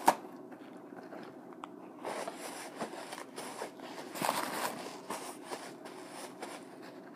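Eating close to the microphone: bites and crunchy chewing in a few bursts, with one sharp click just at the start, the loudest sound.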